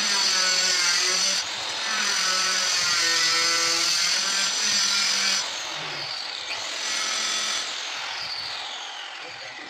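Handheld electric power tool running with a high whine for about five and a half seconds, then again briefly about a second later before fading out near the end.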